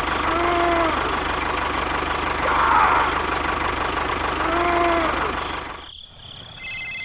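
Small engine running with an even low pulse, with two short pitched calls over it, one near the start and one near the end. About six seconds in the engine sound stops, and a telephone starts ringing with a steady electronic tone.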